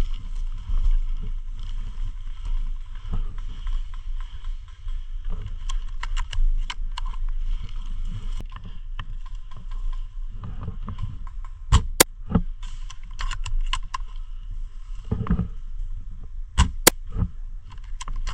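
Airsoft gun firing single sharp shots: a few faint ones, then a quick pair about twelve seconds in and another pair near the end, over a steady low rumble on the microphone.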